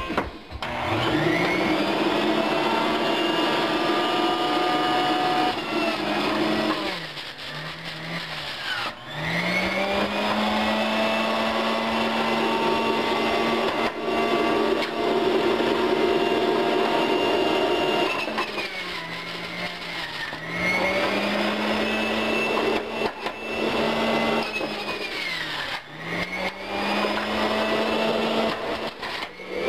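Breville centrifugal juicer motor starting up and running. Its pitch sags and climbs back about three times as vegetables are pressed down the feed chute against the spinning blade.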